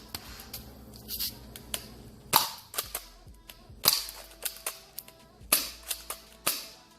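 An airsoft gun firing a string of sharp, snapping shots, four of them louder than the rest, spread over the last few seconds.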